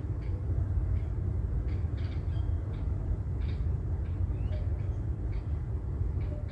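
Steady low rumble of road and engine noise heard from inside a moving car, with short faint high chirps now and then.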